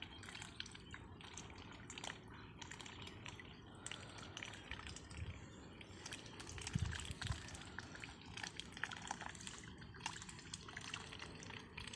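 Domestic ducks dabbling with their bills in shallow water, a dense irregular run of small wet clicks and splashes as they sift for food, with a couple of low thumps about seven seconds in.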